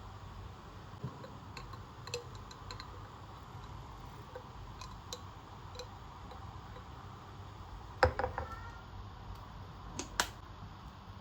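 Kitchen items being handled: scattered light ticks and clicks, a knock with a brief ringing tail about eight seconds in, and a sharper click about ten seconds in.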